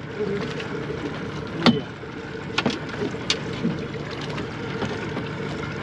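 Boat engine humming steadily on open water, with a few sharp clicks and knocks; the loudest knock comes about a second and a half in.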